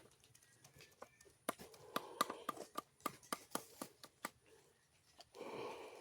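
Irregular knocks and taps of hand work on chicken-feed ingredients, with two short spells of scraping, one about two seconds in and one near the end.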